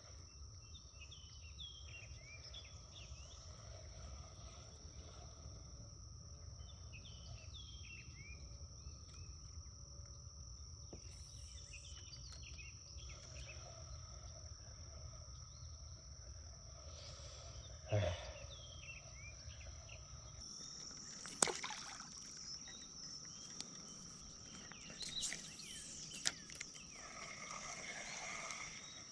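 Outdoor ambience: a steady high-pitched drone of insects, with birds chirping in short repeated calls. A low rumble stops about two-thirds of the way through, and a few sharp knocks come near the end.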